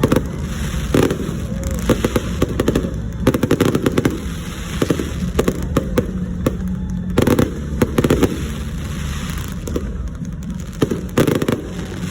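Fireworks going off: irregular bangs and crackling reports, some in quick clusters, over a steady low rumble.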